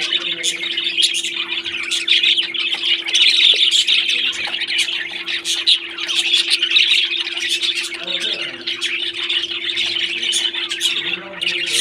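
A flock of parrots chattering and calling continuously, many overlapping calls at once, over a steady low hum.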